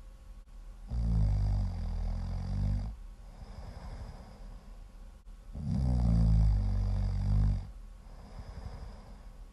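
Loud snoring: two long snores, each about two seconds, starting about a second in and again near the middle, with softer breathing between them.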